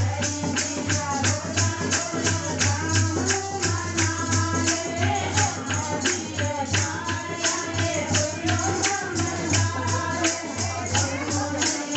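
A woman leading a Hindu devotional kirtan song to the goddess, sung into a microphone, over a quick, steady beat of clapping and jingling percussion, with a steady low hum under it.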